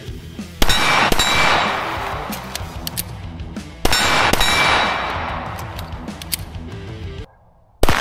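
Pistol shots from a compensated Staccato XC in 9mm on steel targets: two pairs of shots, each pair about half a second apart, with the steel ringing and fading after each pair. Another shot comes right at the end. Background music plays underneath.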